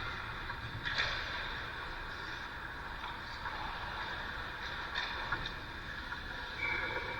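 Vehicle engine running steadily, with a few sharp clicks about a second in and again near five seconds in.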